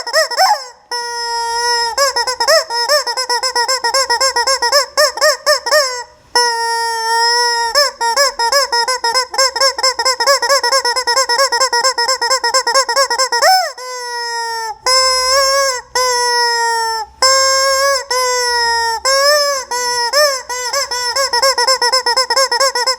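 Squeaky rubber chicken toy squawking as it is squeezed over and over: long, high, honking squeals with a fast wobble in the pitch, broken by brief pauses a few times.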